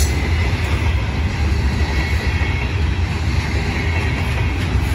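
Herzog hopper cars of a freight train rolling past close by: a steady, loud low rumble of steel wheels on rail.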